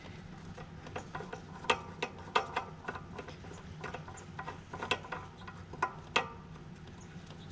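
Metal tools and parts clicking and tapping irregularly while a cleaned pressure-washer valve is fitted back in place, with a few sharper knocks among them.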